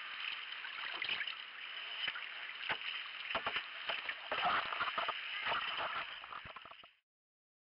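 Water sloshing and splashing around a paddled sea kayak, with a run of knocks and rubbing as the camera is handled, then the sound cuts off suddenly near the end.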